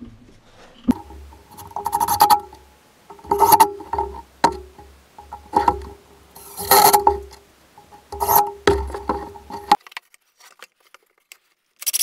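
Craftsman 20V MAX cordless impact driver driving screws into old barn boards in about six short runs, its motor whine over the rapid rattle of the impact hammer. It stops near the end.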